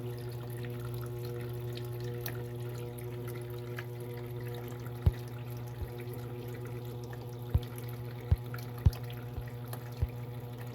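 Electrolux 6 kg washing machine washing a load of towels: water sloshing over a steady motor hum. Several sharp low thumps come in the second half.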